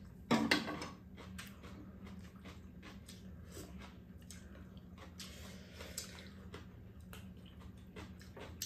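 Two people eating a home meal: metal spoons and chopsticks clicking against bowls and a pot, with small eating noises, over a steady low hum. One brief louder sound comes about half a second in.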